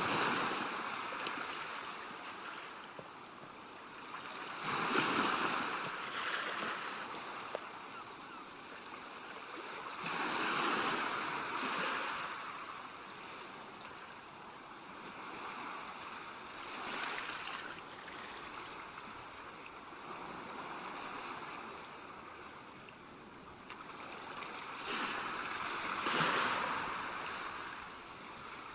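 Sea waves breaking on a beach: a steady wash of surf that swells into louder breakers about every five to eight seconds.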